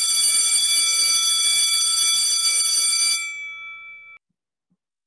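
Electric school bell ringing continuously, then stopping about three seconds in and ringing away over the next second.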